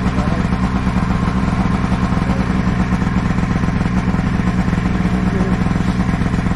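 Snowmobile engine running at a steady speed, an even drone that holds its pitch.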